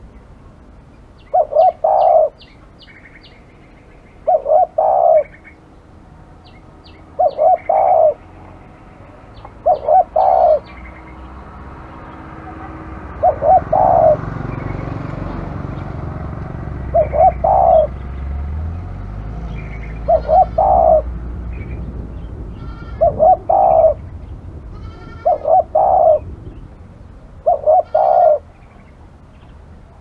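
Spotted dove cooing over and over, a short two- or three-note coo about every three seconds. Faint high chirps from small birds sound between the coos, and a low rumble swells in the background through the middle.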